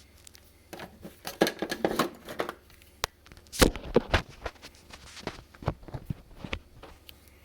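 Irregular handling noises of plastic refrigerator door parts being worked by hand and tool: scraping and rustling in two bursts about a second and three and a half seconds in, with a few sharp plastic clicks.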